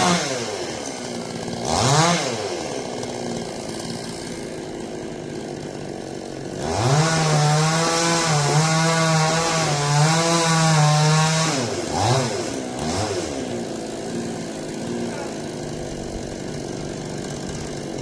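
Two-stroke chainsaw idling with quick revs, then held at high revs for about five seconds with the pitch wavering, then two more short revs and back to idle.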